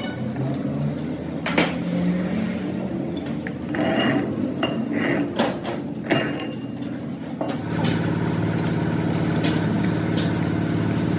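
A machine running with a steady hum, with clinks and knocks of metal on metal; a little over seven seconds in, a steadier, louder machine hum takes over.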